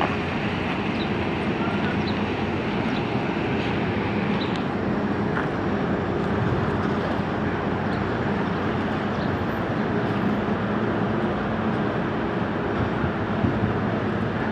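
Heavy diesel engine running steadily, a low even hum under a wash of machinery noise, with no change in level across the whole stretch.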